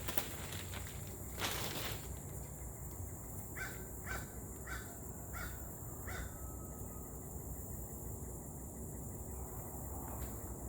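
A bird calling five times in quick succession, about a second apart, with a couple of sharp knocks shortly before.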